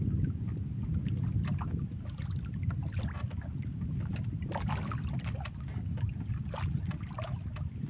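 Steady low rumble of wind on the microphone aboard a small wooden outrigger boat, with water lapping and splashing against the hull in short bursts.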